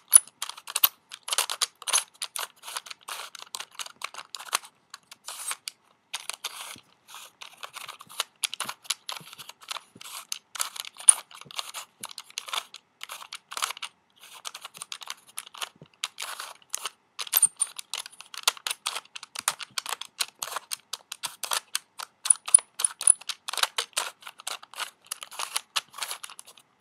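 Plastic pieces of a hand-held turnstile sliding puzzle clicking and clacking rapidly and irregularly as they are shifted around during a solve.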